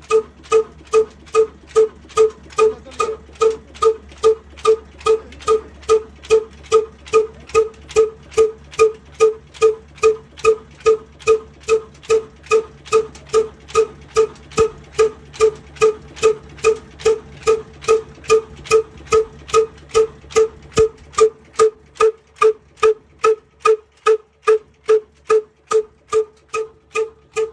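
Big stationary diesel engine with a heavy flywheel running steadily at slow speed. Its exhaust gives an even, pitched pop about two and a half times a second.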